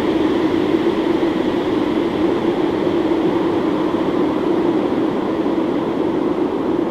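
Heavily distorted, effects-processed audio: a loud, dense, steady noisy drone with no clear speech or melody.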